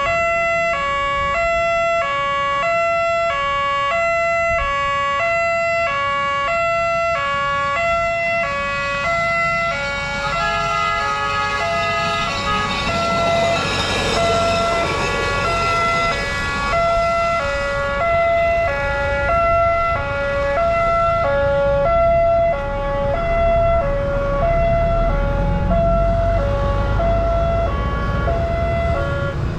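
Level-crossing warning siren sounding steadily, switching back and forth between two pitches about every half second. Midway, a motorised rail inspection trolley passes over the crossing, its engine noise swelling and fading. A low rumble builds near the end.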